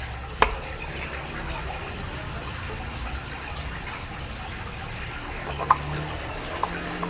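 Steady rush of running water, with a few light clicks of plastic parts being handled, one about half a second in and a few more near the end.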